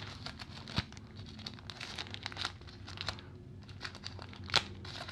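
The sealed pouch of printed manuals being crumpled and pulled open by hand, with a run of small crinkles and a couple of sharper snaps, the loudest about four and a half seconds in.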